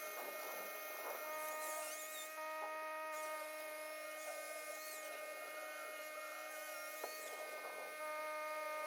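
A steady electrical hum made of several held tones, one of them cutting in and out, with faint high chirps above it.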